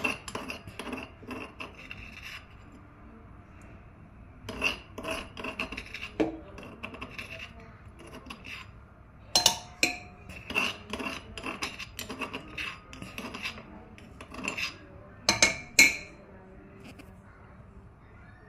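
A metal spoon scraping and clinking against a steel pot while spices are stirred and roasted in ghee. It comes in three bursts of scrapes and clicks, the longest and loudest in the second half.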